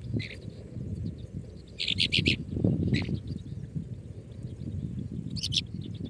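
Songbird nestlings begging with high-pitched chirps: a short call at the start, a loud run of chirps about two seconds in, another near three seconds and one more near the end, over a low steady rumble.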